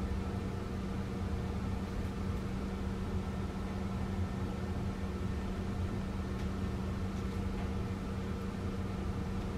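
Steady low hum and fan-like hiss of a running kitchen appliance, unchanging throughout, with a couple of faint light ticks late on. The thick sauce being poured makes no clear sound of its own.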